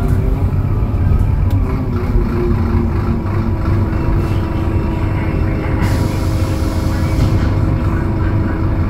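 Scania DC09 five-cylinder diesel engine of a Scania K280UB city bus running under way, heard inside the passenger cabin: a steady low rumble with a whine that rises slightly, then holds steady. A short hiss comes in about six seconds in and lasts just over a second.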